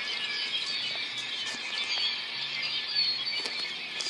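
Many small birds chirping and twittering together, a continuous busy chorus of short high calls.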